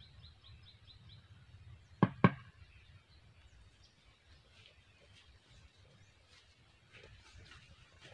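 Two sharp knocks about a quarter of a second apart, standing out loudly over a faint outdoor background. A rapid run of short high chirps stops within the first second, and faint ticking and rustling come in near the end.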